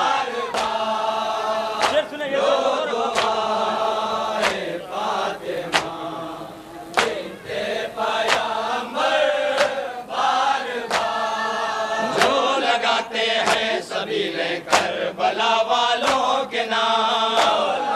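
A group of men chanting a nauha, a Muharram lament, in unison, with sharp strikes about once a second keeping the beat: the hand-on-chest blows of matam.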